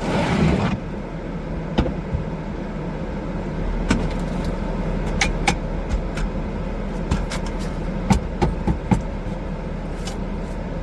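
Car running with a steady low rumble, with a dozen or so sharp, irregular clicks over the second half.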